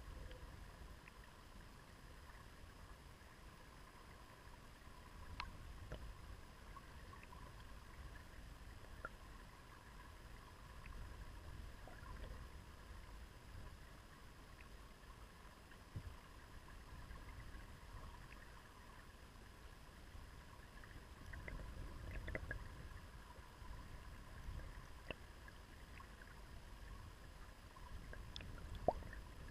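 Faint underwater sound of a shallow river current on a pebble bed, heard through a submerged camera: a low steady rumble with scattered small clicks, a louder click near the end.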